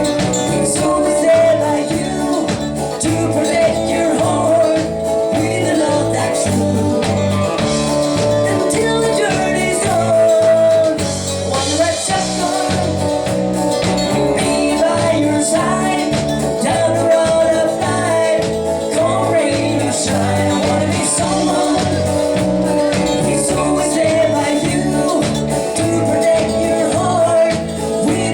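Live country band playing a song with a steady bass and drum beat.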